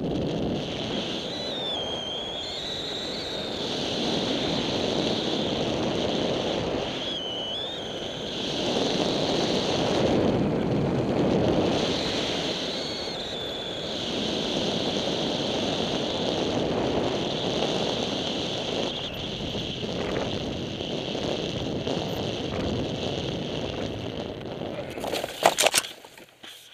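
Wind rushing over the microphone of a powered paraglider gliding down with its motor stopped, swelling and easing, with a thin high whistle that wavers now and then. Near the end, a short burst of knocks and clatter as the pilot touches down.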